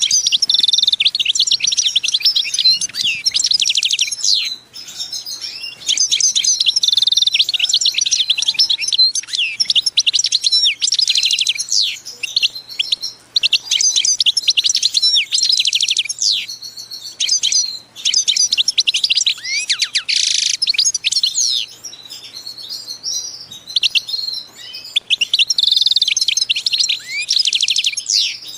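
A small songbird singing in repeated phrases of rapid chirps and trills, each phrase lasting a second or two with short pauses between.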